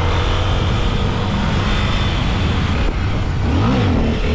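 Honda XRE300's single-cylinder engine running under way, with heavy wind rush on the helmet-mounted microphone. Near the end the engine pitch dips and climbs again.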